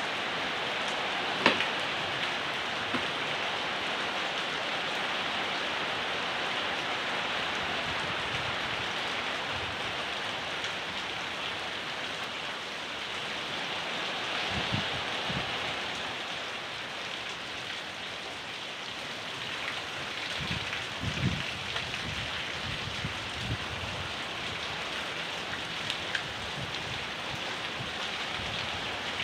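Steady rain falling, an even hiss, with a sharp tap about a second and a half in and a few low thuds in the second half.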